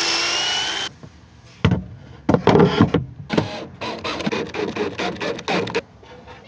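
Power drill running with a steady whine that cuts off about a second in, then a string of irregular knocks and scrapes of wood being handled.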